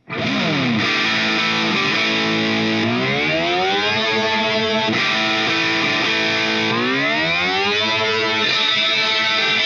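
Distorted electric guitar chord played through the GTC Sound Innovations REVPAD's 'Rocket' pitch-shifting effect: after a quick downward swoop at the start, the pitch glides upward twice, about three and seven seconds in, each time settling on a held higher chord.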